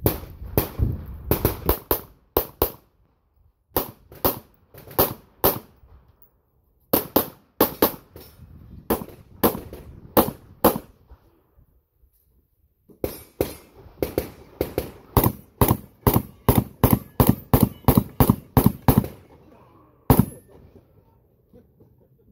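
Gunfire in fast strings, about three shots a second, broken by pauses of one to two seconds, with a single last shot near the end.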